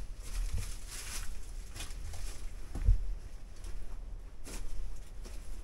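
Footsteps scuffing and crunching over a rocky cave floor in an irregular walking rhythm, over a steady low rumble, with one sharp thump about three seconds in.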